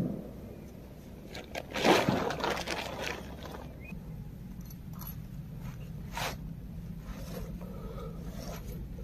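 Scraping and rustling of tent fabric and gear being handled while a tent is laid out and pegged, loudest about two seconds in, with single sharp sounds at the start and about six seconds in.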